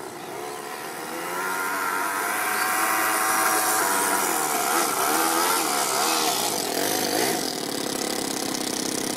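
Toyan FS-S100 four-stroke single-cylinder overhead-cam engine in an RC crawler running under throttle, its pitch rising and falling as it revs. It grows louder over the first few seconds as the car comes closer, then drops back a little near the end.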